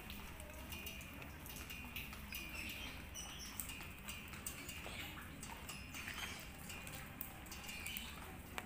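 Footsteps on a wet paved lane, heard as scattered short taps, with faint high chirps of small birds over a low steady rumble.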